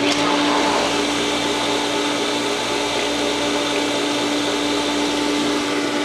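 Inground pool pump running, a steady electric motor whir with a constant hum over it.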